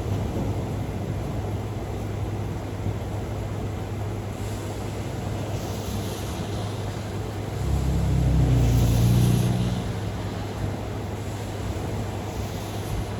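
Thunderstorm ambience: a steady low rumble with wind noise, and a louder deep rumble swelling and fading about eight to ten seconds in.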